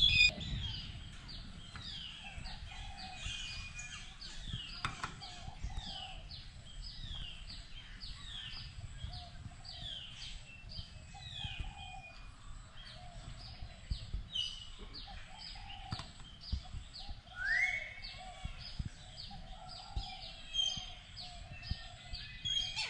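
A group of birds calling: many short, falling chirps repeat throughout over a continuous lower chattering, with one louder rising call about two-thirds of the way through.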